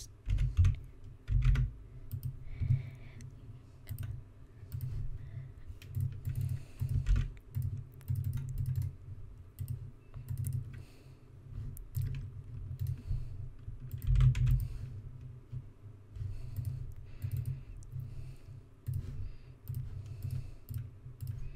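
Computer keyboard typing and mouse clicking: irregular, separate key and button clicks with dull low thumps underneath.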